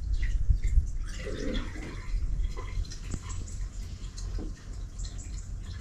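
Water trickling and dripping in a plastic sink waste pipe, with small irregular drips from a joint that is not yet watertight for want of 32 mm tapered washers.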